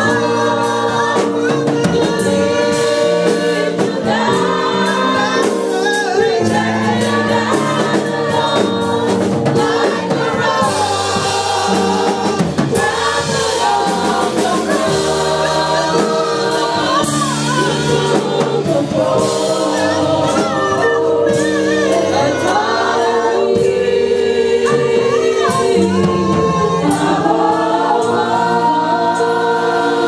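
Gospel worship team singing a worship song into microphones, several voices together over sustained held chords.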